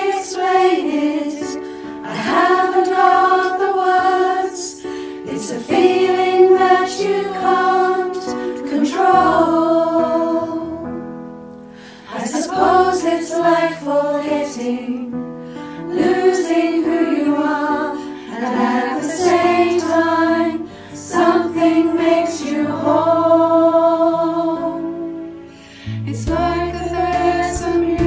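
All-female virtual choir, voices recorded separately at home and mixed together, singing in phrases of a few seconds over an instrumental backing track. The backing's low bass notes grow stronger near the end.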